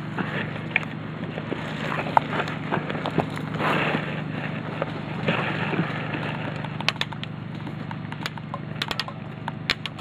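Scattered sharp cracks and short quick runs of airsoft gunfire, with a rustle of movement about a third of the way in, over a steady low hum.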